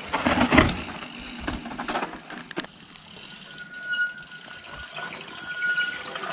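Mountain bike tyres skidding and rolling over loose dirt and rock as a rider passes close. This is followed by a few sharp clicks, then the steady high-pitched buzz of a freewheeling rear hub from about three and a half seconds in, as the next rider coasts down the steep slope. The buzz grows louder near the end.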